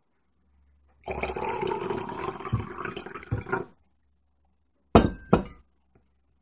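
A plastic baby spoon scraping food from a dish for a couple of seconds, then two quick clicks close together near the end.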